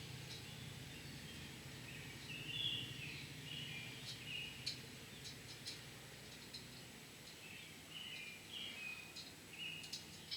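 Faint, high chirping like small birds, with scattered light clicks of screwdrivers on the valve keepers and spring retainer, over a low steady hum.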